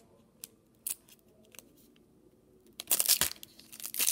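A foil trading-card pack being torn open by hand. A few faint crinkles and clicks, then about three seconds in a loud burst of crinkling and tearing as the foil wrapper is pulled apart at its top seam.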